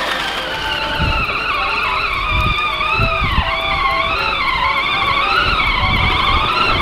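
John Deere battery-powered ride-on toy tractor driving through snow: its electric drive motors and gears give a high whine that wavers up and down with the load, with a few low thumps from the wheels.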